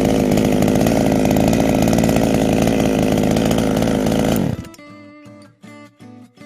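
Echo CS-350WES two-stroke chainsaw running steadily at high revs, cutting off suddenly about four and a half seconds in. Acoustic guitar music follows.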